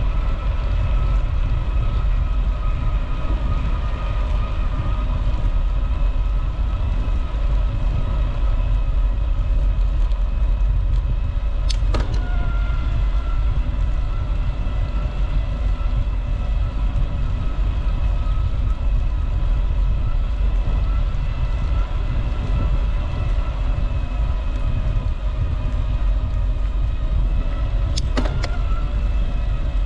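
Wind rumbling on the microphone of a camera riding on a moving bicycle, with a steady whine in several tones over it. Two sharp clicks come about 12 seconds in and again near the end.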